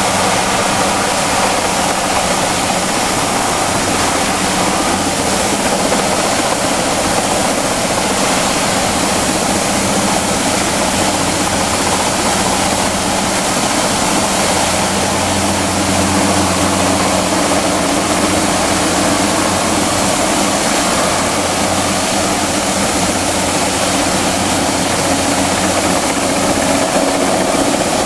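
Helicopter flying overhead with a sign letter slung beneath it, a steady low drone, over the constant hiss of a large fountain's water jets.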